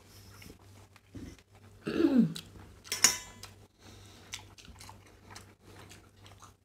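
Eating by hand from steel plates: rice being mixed and chewed, with many small clicks. A short voiced sound comes about two seconds in, and a sharp clink of tableware that rings briefly comes about three seconds in.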